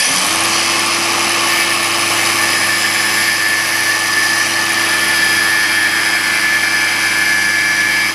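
Electric grinder switched on and running at steady speed with a high whine, used to cut through a PEX crimp ring; it is switched off just before the end and begins to spin down.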